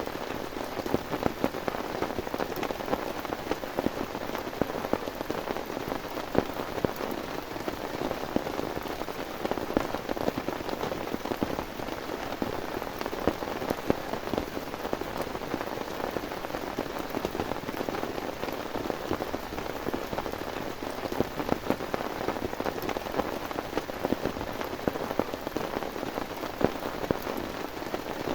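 Heavy rain falling steadily, with many individual drops striking sharply close by.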